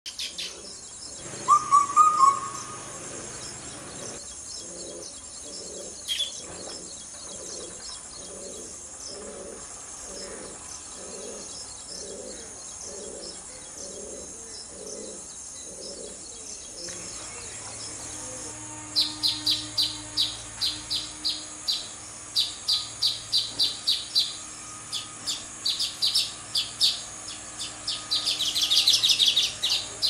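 Baya weaver chirping in quick runs of short high notes, ending in a wheezy buzzing trill near the end. Before that there is a brief loud tone about two seconds in and a slow low pulsing.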